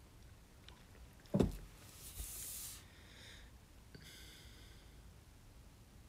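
A single dull thump about a second and a half in, as an arm comes down on a table, followed by a few short stretches of rustling from the body shifting position.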